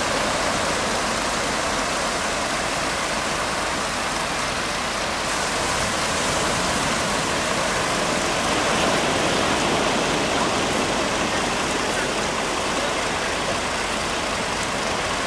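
Steady rush of surf breaking on a sandy beach, a continuous noise that does not let up.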